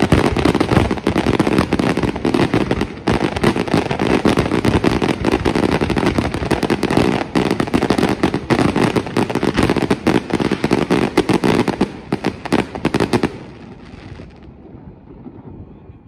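Aerial fireworks shells bursting in a rapid, continuous barrage of bangs and crackle, which stops abruptly about thirteen seconds in.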